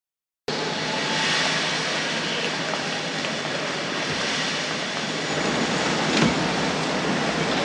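Steady hiss of steam from a steam locomotive standing at a station platform, starting abruptly about half a second in, with a single knock about six seconds in.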